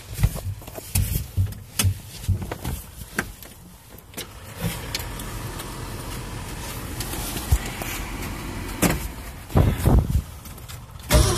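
Big-block Ford V8 of a 1968 Ford F-250 Ranger on a cold start with no choke. After a few scattered knocks, a steady engine sound comes in about four and a half seconds in and builds, with two loud bursts near the end.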